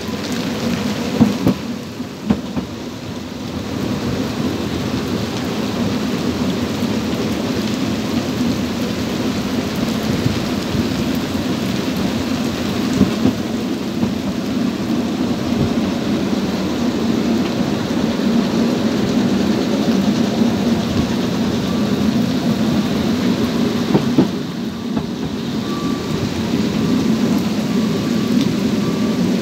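Heavy rain pouring down on an open narrow-gauge railway carriage as the train runs, a dense steady hiss over a low rumble, with a couple of sharp knocks. A faint steady tone starts near the end.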